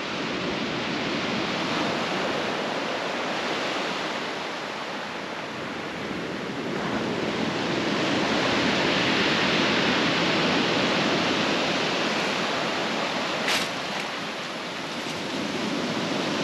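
Ocean surf washing and breaking over a rocky shoreline, a steady rush that swells louder midway and eases again, with one short click about three-quarters of the way through.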